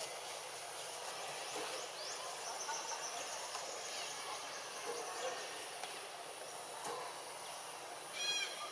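Steady outdoor forest background noise with faint, thin high calls, and a short run of rapidly repeated high chirps near the end.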